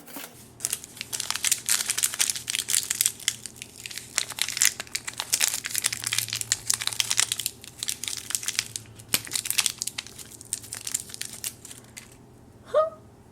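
Plastic wrapping of a small Shopkins surprise package crinkling and crackling as it is opened by hand. Dense, rapid crackles start about half a second in and die away about a second before the end.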